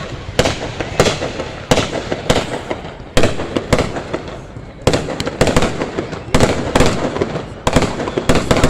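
Fireworks going off: a rapid, irregular series of sharp bangs and pops, several a second, easing briefly around the middle before picking up again.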